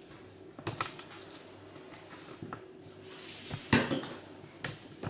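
Metal spoon clinking against a salt dish and a small pan as salt is scooped and added: a few light clicks, one louder clink about three-quarters through, with a short rustle just before it.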